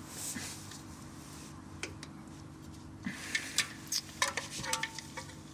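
Metal oil filter wrench clinking and rattling as it is worked around the oil filter. The second half holds a quick cluster of sharp metal clinks, one with a brief ring.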